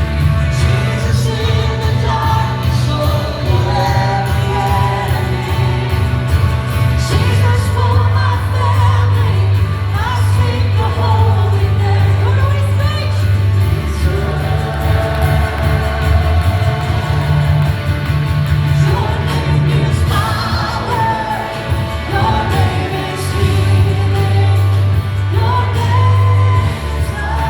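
Live church worship music: a band with a steady bass line under singers leading a worship song in a large room.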